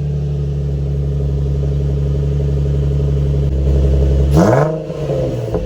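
Infiniti G35's 3.5-litre V6 idling on its first cold start through a full Motordyne exhaust, then a quick blip of the throttle a little over four seconds in, the pitch sweeping up and dropping straight back to idle, with a short sharp crack as it settles.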